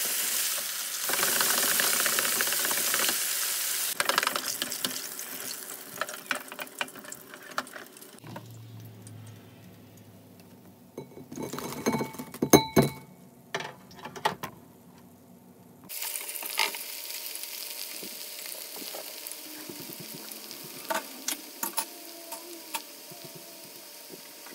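Hot oil sizzling as chicken tenders deep-fry in a wire fryer basket, loud at first, then dying down with crackles. Midway, after a quieter stretch, there is a cluster of knocks and clatter from the wire basket. From about two-thirds through, the oil sizzles again with scattered pops as jalapeño slices fry.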